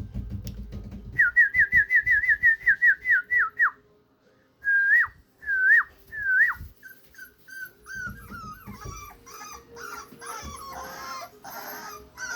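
Four-week-old American Bully puppies crying: a quick run of short, high yelps, about four a second, then three longer whines. After that several puppies whimper over one another, softer, near the end.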